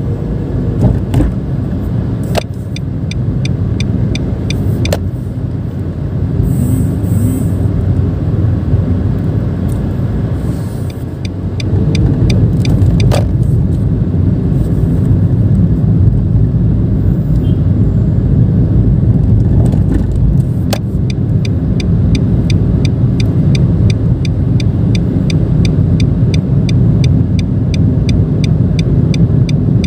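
Cabin noise of a Nissan March 1.2 automatic being driven: engine and road noise, steady and getting louder about twelve seconds in. A few sharp clicks are heard, and in the last third a regular ticking of about two ticks a second.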